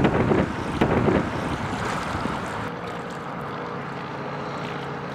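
Wind buffeting the microphone for about the first second, then the steady engine drone of a motor cruiser passing on the river, with a faint held tone coming in about halfway through.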